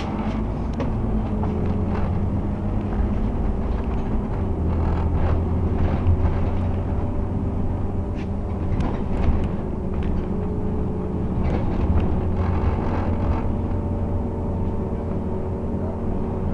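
Scania OmniCity bus heard from inside the passenger saloon while driving: a steady engine and drivetrain hum, with occasional short clicks and knocks.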